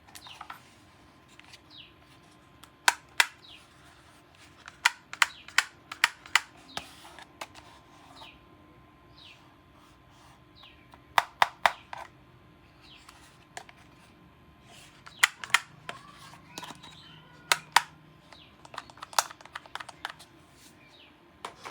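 Toy guns being worked: sharp plastic clicks and snaps in quick clusters of two to five, coming every few seconds.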